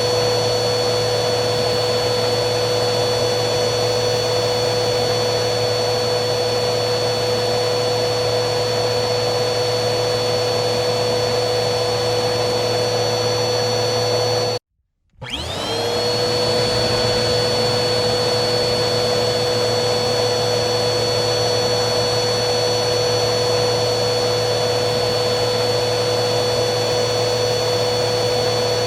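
Vacuum cleaner motor running steadily with a constant whine over a rushing airflow. About halfway through it cuts out for about half a second, then comes back with its whine rising as the motor spins back up.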